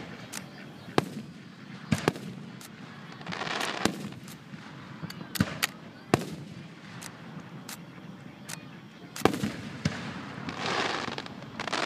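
Aerial fireworks shells bursting in a finale barrage: about a dozen sharp bangs at uneven intervals, with two longer spells of rushing noise between them.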